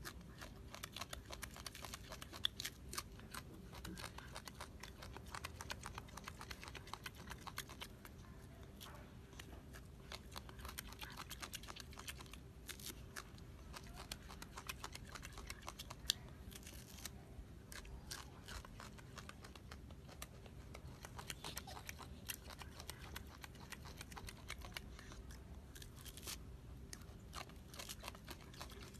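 Golden snub-nosed monkey picking at and eating a peeled orange: quiet, irregular small clicks of peel and pulp tearing and of chewing.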